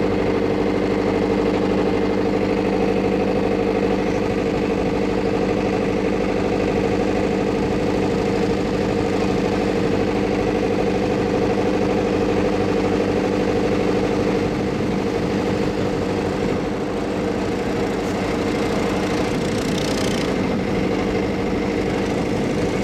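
Vehicle engine running steadily at a constant low speed, a drone holding one even pitch, with a brief hiss near the end.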